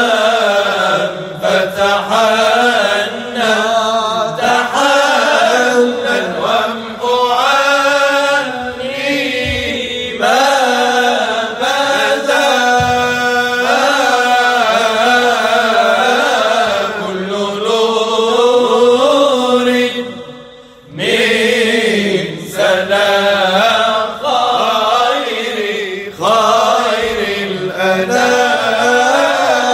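Moroccan Sufi samaa ensemble of men chanting a muwashshah together, a slow sung line with long, wavering notes. The singing breaks off briefly about twenty seconds in, then resumes.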